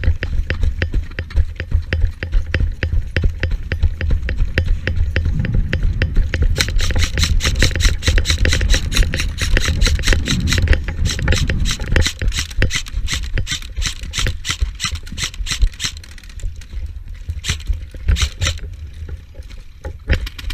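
Helmet-mounted GoPro picking up a rapid, steady run of clicks and knocks over a heavy low rumble, sharpest in the middle and thinning near the end: a player's quick footsteps and rattling gear on the move.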